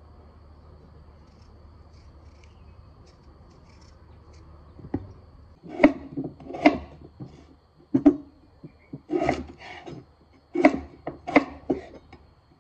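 A kitchen knife paring the skin off a raw potato, a faint steady scraping. About five seconds in, the knife starts cutting peeled potatoes into chunks on a wooden chopping board: about ten sharp, irregular knocks of the blade on the board.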